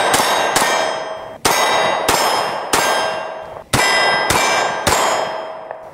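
Beretta PX4 Storm Subcompact 9mm pistol fired rapidly at steel targets. About eight shots come in quick groups, each followed by the clang of the steel plate ringing out.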